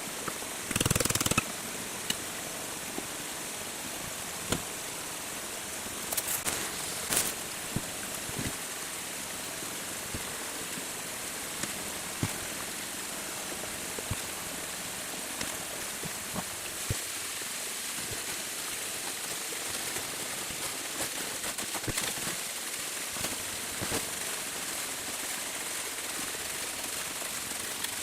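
Steady rush of flowing stream water with scattered knocks and clicks, the loudest a brief rattling burst about a second in.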